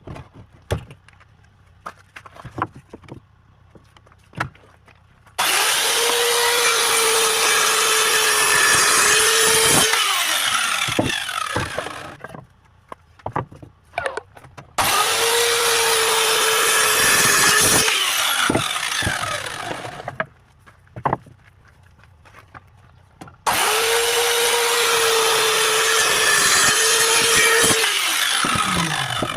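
Electric power saw cutting wood three times: each time the motor starts with a steady whine, runs through the cut for about four seconds, then spins down with falling pitch. Light knocks and clicks of wood being handled come in between the cuts.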